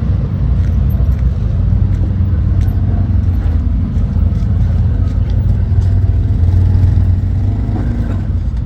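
Vehicle driving, its engine giving a loud, steady low rumble, with a few faint light clicks and rattles.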